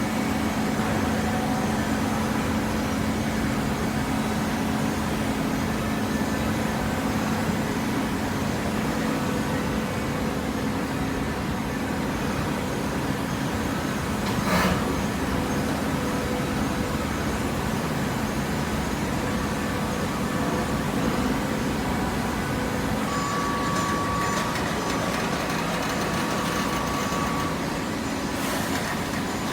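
Hydraulic baler's power unit running steadily, a continuous mechanical hum, with a single sharp knock about halfway through.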